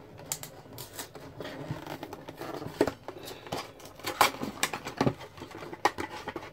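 A cardboard food box being torn open and the plastic packaging inside crinkling: an irregular run of sharp tearing and crackling noises.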